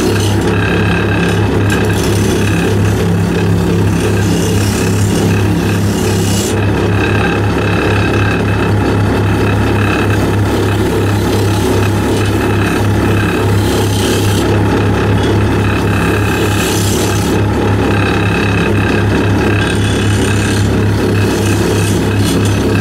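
Wood lathe running with a steady hum while a hand-held turning tool cuts the spinning wooden workpiece, a scraping sound that starts and stops in several passes of a few seconds each.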